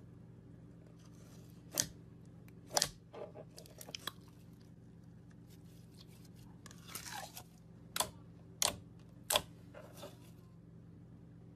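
Thick glossy slime being stirred in a jar, poured out and pressed with fingers, giving a series of sharp sticky pops and small crackles, with a short wet squelching rustle about halfway through. A low steady hum sits underneath.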